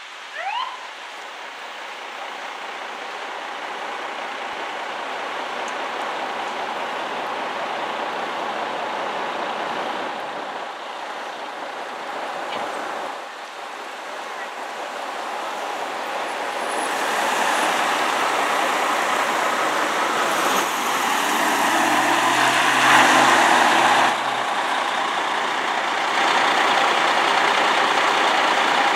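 Fire department vehicle traffic: a short rising siren chirp right at the start, then the Battalion Chief's Chevrolet Tahoe engine and tyres approaching and passing. From about 17 s there is louder, steady running noise of fire apparatus working at the fireground, with a low hum for a few seconds around the middle of that stretch.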